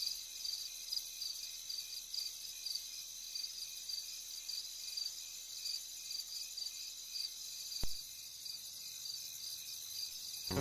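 Faint crickets chirping in a steady repeating pattern, high-pitched, with a single sharp click about eight seconds in.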